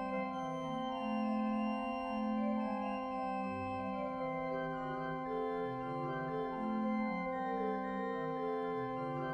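Slow organ music: sustained chords over a long held low note, with the upper notes changing every second or so.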